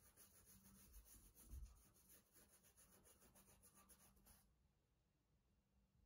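Faint, quick scrubbing of a toothbrush along the welt of a black leather boot, working polish in with rapid back-and-forth strokes. It stops abruptly about four seconds in.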